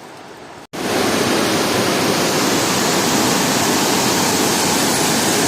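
Waterfall: a loud, steady rush of falling water that cuts in abruptly under a second in, after a faint hiss.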